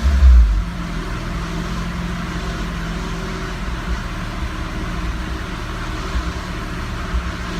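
Turbocharged Honda S2000 F20C four-cylinder engine idling steadily on a chassis dyno, with the dyno's cooling fans blowing, after a short loud low burst at the very start.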